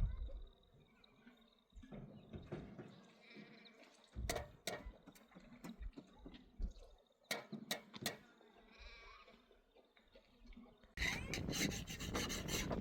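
Goats bleating faintly a couple of times, among scattered sharp knocks. Near the end comes a louder burst of rough scraping and clattering.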